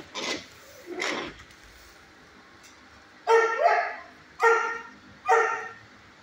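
A dog barking four times, starting about three seconds in: a quick pair, then two single barks.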